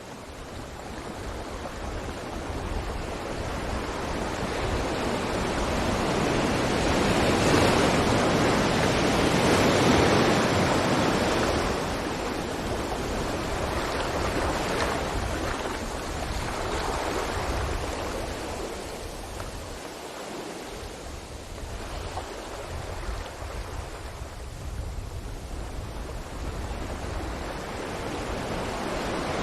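Ocean waves breaking on a beach, a steady wash of surf that swells to a peak about eight to ten seconds in, fades, and builds again more gently.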